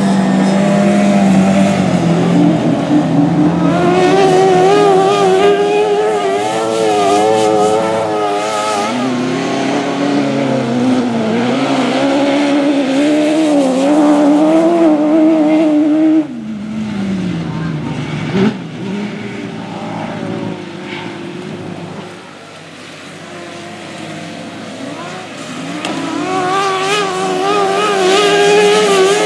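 Several autograss race cars racing on a dirt track, their engines revving hard and wavering in pitch as they slide through the bends. The noise drops off sharply about halfway through, is quieter for a few seconds, then builds again near the end as cars come back past.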